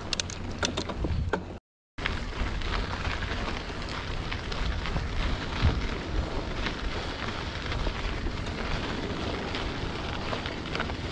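Trek Roscoe 8 mountain bike riding a dirt trail: tyres rolling over gravel, with the bike rattling and clicking, and wind rumbling on the action camera's microphone. A cluster of sharp clicks comes in the first second and a half, then the sound drops out completely for a split second before the steady riding noise resumes.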